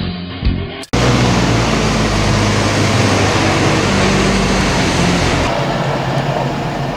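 A heavy farm machinery engine running steadily under load with a loud rushing noise, which starts abruptly about a second in after a brief snatch of music.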